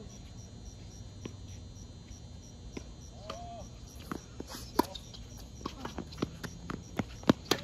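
Crickets chirping steadily. From about halfway in, a series of sharp knocks from tennis ball strikes and bounces on the hard court, the loudest near the end.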